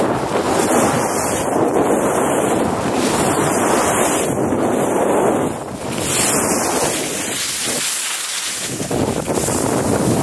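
Wind buffeting the microphone at speed, mixed with the hiss of skis sliding and spraying through soft snow. It eases briefly just before the middle, and the low rumble drops out for a moment about eight seconds in.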